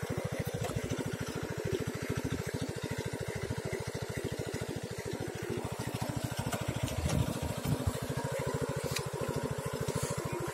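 Small engine of a VST rice transplanter running steadily, a rapid even low pulse. A few low bumps about seven seconds in.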